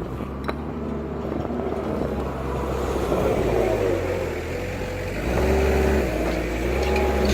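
Engine of a work machine on a paving site running steadily, with a whine that comes and goes. It grows louder about five seconds in.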